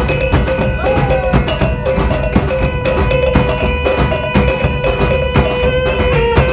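Traditional Minangkabau music accompanying the Galombang dance: drums and other struck percussion keep a quick, busy beat under a long held melody line.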